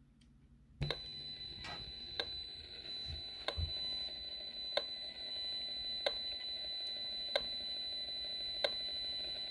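Safe and Sound Pro II RF meter's audio coming on about a second in: a steady hiss with a high tone, broken by sharp clicks about every 1.3 seconds. The clicks are the meter sounding the pulsed radio emissions of a Fitbit.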